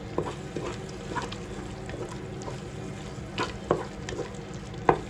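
A spoon stirring in a pot of chicken curry, with a few sharp clinks of the spoon against the pot, the loudest near the end, over a steady low hum.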